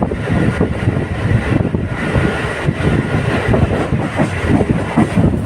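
Local passenger train running along the track, heard on board: a loud, steady rumble with dense, irregular knocking from the wheels on the rails.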